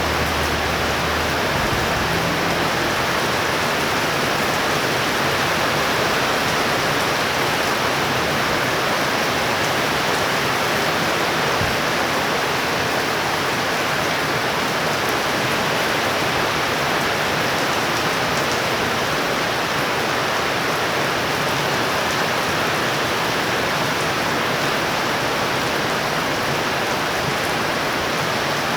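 Heavy tropical thunderstorm rain falling steadily, a dense even hiss that holds at one level throughout. A low rumble, likely thunder, dies away in the first second or so.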